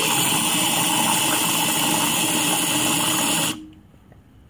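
Aerosol can of One Touch Latte foaming creamer hissing steadily as its nozzle is held down, spraying foamed creamer into a mug of coffee. The spray cuts off abruptly about three and a half seconds in.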